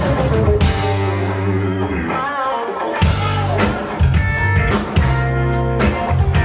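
Rock band playing live, with guitar, bass and drum kit.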